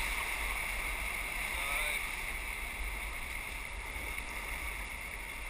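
Whitewater rapids rushing steadily around a paddle raft, an even noise with no break, with faint voices briefly about two seconds in.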